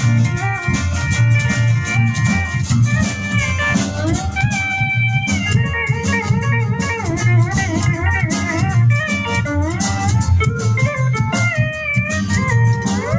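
Instrumental break of a rockabilly country band: lap steel guitar playing a lead line with sliding notes over strummed acoustic guitar, upright bass and drums.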